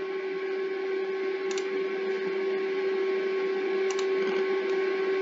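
Steady machine hum with a whine, from the cooling fans of running FPGA mining hardware, growing slightly louder. Two mouse clicks come about a second and a half in and again about four seconds in.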